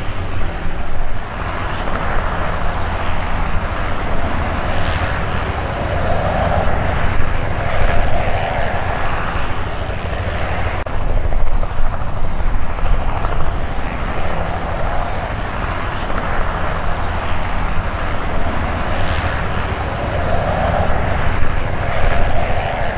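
Light aircraft's piston engine running steadily at idle.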